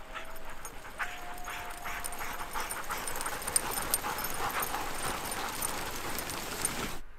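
A team of sled dogs running past on packed snow: a quick, busy patter of paws and sled with a high, held dog whine in the first couple of seconds. It cuts off suddenly near the end.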